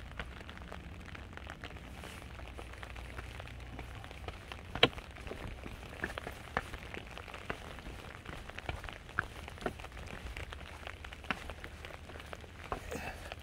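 Rain falling, with irregular drops ticking close by and one louder tap about five seconds in.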